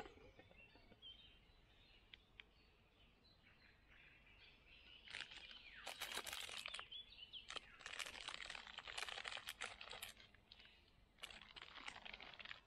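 Faint chorus of forest songbirds. About five seconds in it is overtaken by a few seconds of dense crackling and crinkling, which returns briefly near the end.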